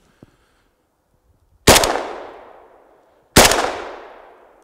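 Two shots from an AK-pattern rifle in 5.45x39, just under two seconds apart, each with a long echo fading away through the trees.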